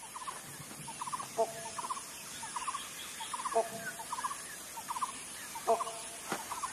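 Wild animal calls in a steady repeating pattern: short trills about twice a second, with a louder, more tonal call about every two seconds.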